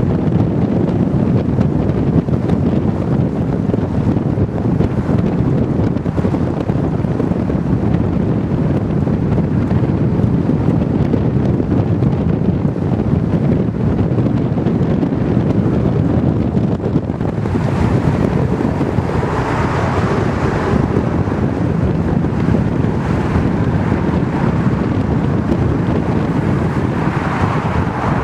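Steady wind buffeting on the microphone of a camera riding in a moving car, with road noise underneath. A brighter rushing sound swells in twice in the second half.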